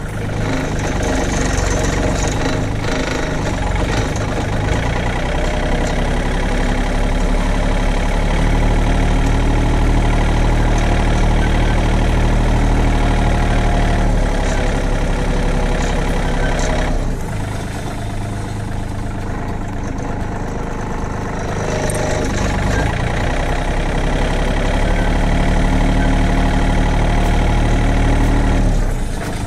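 Farm tractor engine running steadily under load while pulling a spring-tine cultivator between crop rows. The engine drops off for a few seconds past the middle, then picks up again.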